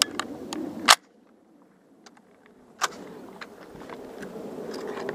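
Two .30-06 M1 Garand rifle shots about two seconds apart, the first the loudest; after it the recording drops to near silence for nearly two seconds.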